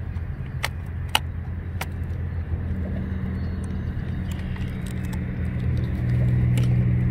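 A steady low engine hum that grows louder about six seconds in, with scattered sharp clicks and rattles of drone gear being handled in a foam-lined plastic hard case.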